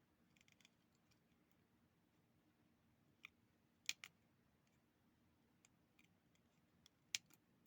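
Near-silent bench work: a few faint, sharp clicks and taps of small tools against a circuit board while a solder bridge is being worked, with two slightly louder clicks about four seconds in and two more near the end, over a faint low hum.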